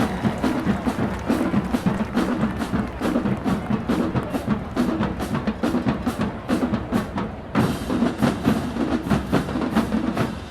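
Marching band drumline playing a cadence: rapid snare strokes over bass drum beats, with a brief break about seven seconds in.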